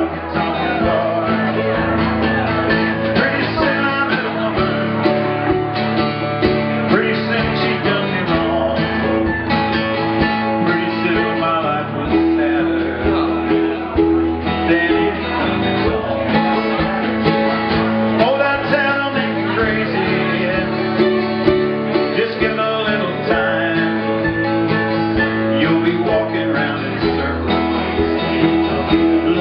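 Live acoustic band playing a country-style song: strummed acoustic guitar and mandolin over light drums, with a man singing.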